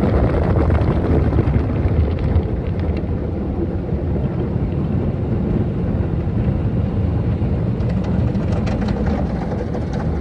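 Tunnel car wash machinery heard from inside the car's cabin: a steady low rumble of equipment and water while foam is applied over the windshield.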